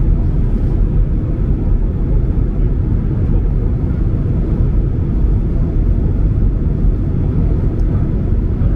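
Steady low rumble of a Boeing 767-300ER's cabin in flight on approach: engine and airflow noise heard from a window seat, even and unbroken.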